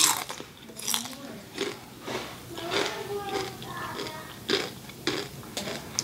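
Close-miked eating sounds: a crispy fried piece of food being bitten and chewed, with sharp crunches coming irregularly every half second to a second or so.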